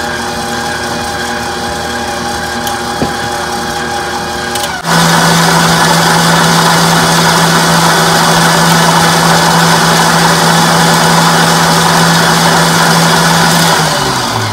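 KitchenAid stand mixer beating the cheesecake filling, running steadily at a low speed, then switched up to a louder, higher speed about five seconds in. Near the end it is switched off and its hum drops in pitch as the motor spins down.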